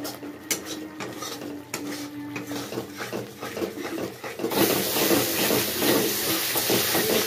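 Spatula scraping and knocking against a non-stick kadai as spice masala is stirred and fried. About four and a half seconds in, a louder, steady sizzle of the paste frying in oil sets in under the stirring.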